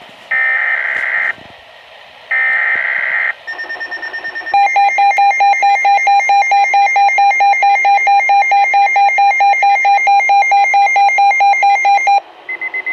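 Weather radio emergency alert signalling: two short, harsh digital data bursts (SAME header codes), followed by a loud alarm tone pulsing about five times a second for roughly seven seconds, which cuts off abruptly. This marks the start of a warning broadcast.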